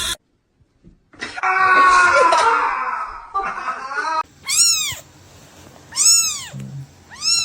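Cat meowing: after a longer drawn-out call, three short meows about a second and a half apart, each rising and then falling in pitch.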